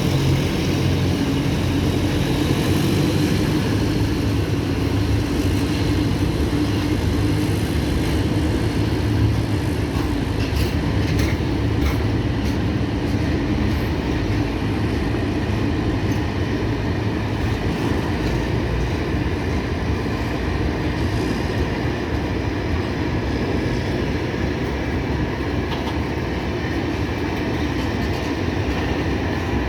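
Freight train rolling steadily past, a continuous rumble of wagon wheels on the rails with a few faint clicks about a third of the way in.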